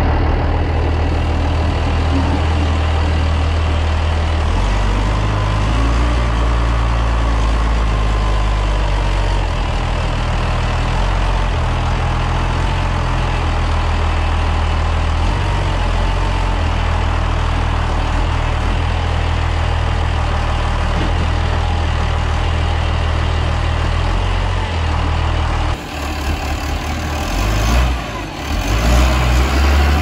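Massey Ferguson tractor's diesel engine running as it drives with a loaded front loader, a loud steady low drone heard close up. After about 26 s the sound briefly drops away, then the engine comes up loud again near the end.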